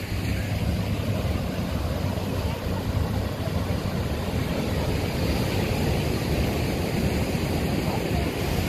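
Steady rumble of ocean surf and wind along a sandy beach.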